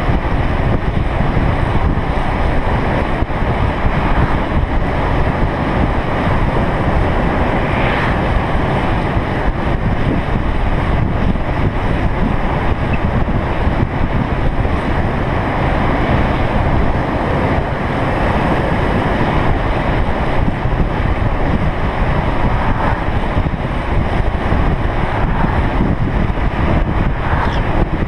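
Steady wind noise buffeting the microphone at downhill longboarding speed, with road rumble underneath from rolling on asphalt.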